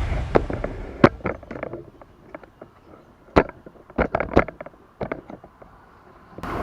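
Background music fading out, then a scattered series of sharp clicks and knocks, about ten in all, with two close clusters in the middle. A steady noisy ambience cuts in abruptly near the end.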